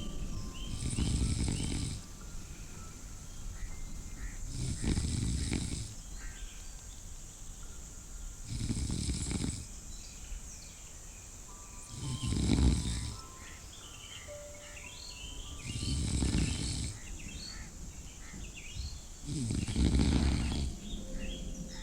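A person snoring slowly and regularly: six rasping snores, each about a second long, coming about every four seconds.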